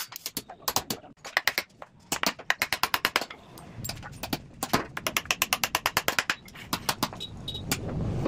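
Hammer knocking on a wooden stool frame: runs of sharp taps, several a second, with a short pause about a second in.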